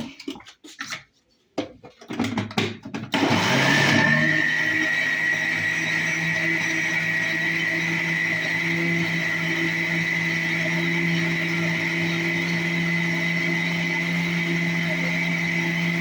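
A few knocks, then an electric blender switches on about three seconds in and runs steadily with a high whine, puréeing soaked dates.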